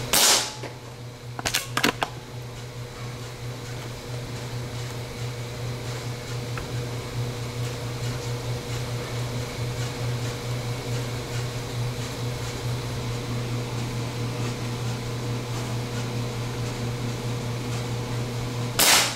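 Two shots from a Benjamin Marauder Woodswalker .22 precharged pneumatic air gun, one right at the start and one about nineteen seconds later, with a quick cluster of clicks about a second and a half after the first. Between them a steady low hum.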